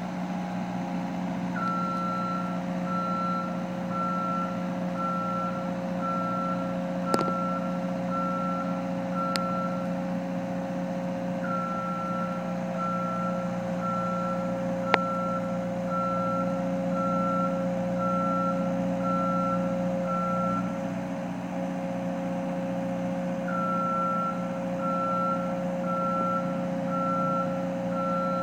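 A heavy vehicle's reversing alarm beeping about once a second in three runs, with short pauses between them, over the steady drone of its running engine. There are two sharp clicks, one about a third of the way in and one about halfway.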